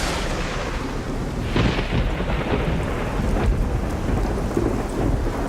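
Thunderstorm ambience: steady rain with deep rolling thunder, and sharper thunder claps about a second and a half in and again near the middle.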